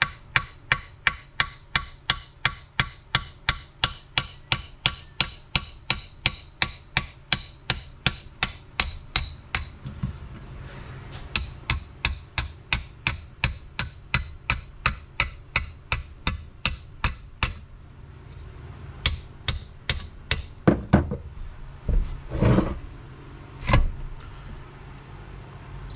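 Hammer tapping a brass drift to drive the gear shaft out of a T-90 transmission case, in a steady run of sharp metallic strikes at about two and a half a second. After a short pause about ten seconds in the tapping resumes, then gives way to a few scattered blows and some duller knocks near the end.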